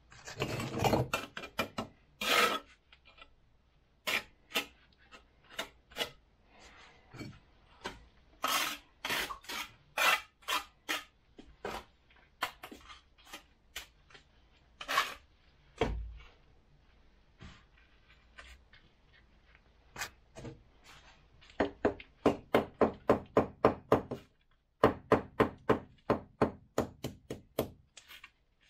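Steel bricklaying trowel scraping and knocking on refractory firebricks and mortar as bricks are laid: scattered scrapes and knocks, then from about three-quarters of the way through a fast run of short strokes, about five a second, with a brief pause partway.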